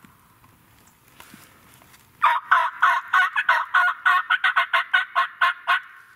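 Turkey yelping: a run of about fifteen short, sharp, evenly pitched notes that starts about two seconds in and quickens in the middle before stopping.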